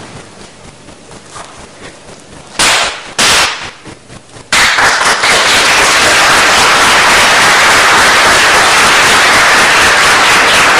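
Audience applauding. Two short loud bursts come first, then from about four and a half seconds in a dense, loud, steady clapping.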